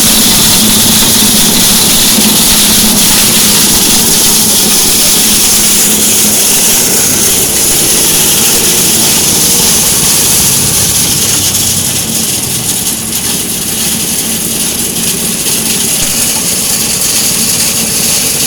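Honda 5.5 hp single-cylinder petrol engine running steadily at speed, driving a grass chopper, with a strong steady hiss over the engine note. The sound eases a little about twelve seconds in.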